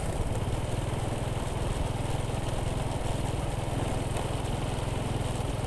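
Small motorcycle engine running steadily at low revs, an even low pulsing with no change in speed.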